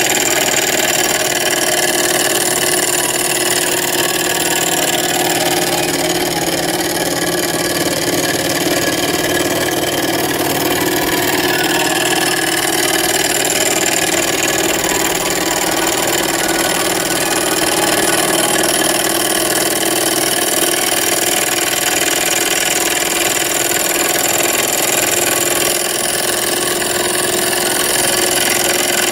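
Small hobby Stirling engine running at full speed on an HHO flame, spinning a small DC motor as a dynamo: a steady mechanical whirring with a constant hum.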